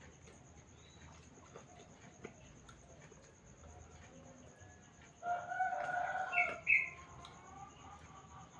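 A rooster crows once, about five seconds in: a held call of under two seconds that ends in two short, higher notes. Faint scattered clicks sit underneath.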